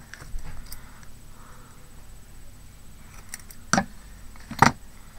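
Faint ticks and taps of small objects being handled, then two sharp clicks about a second apart near the end.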